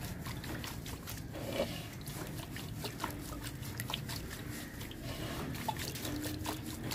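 Pigeons pecking at freshly scattered millet grain: many quick, irregular clicks and ticks over a steady low hum.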